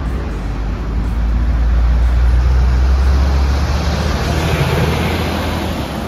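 Heavy truck with a bulk tanker trailer driving past close by. A deep engine rumble swells from about a second in and is loudest through the middle. Tyre and road noise rise toward the end as it comes alongside, over steady street traffic.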